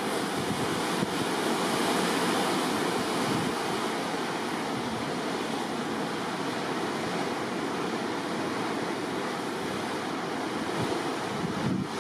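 Sea water rushing and churning along the side of a moving ship in a light swell, a steady rush, with wind on the microphone.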